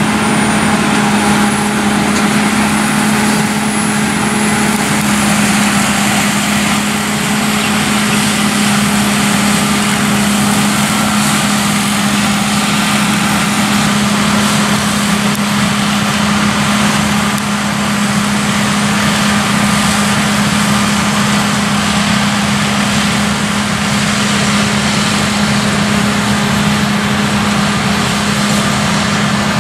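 Claas Lexion 7500 Terra Trac combine harvester running steadily while threshing soybeans: its engine and threshing machinery make a loud, even noise with a constant low hum.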